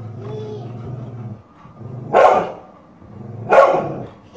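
Dog barking twice, loud and short, about two seconds in and again about a second and a half later: protective barks at a woman raising a slipper at a child.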